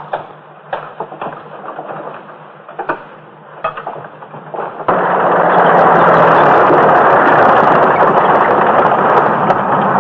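Scattered sharp cracks over a low background, then, about five seconds in, a sudden loud, steady rushing noise that holds.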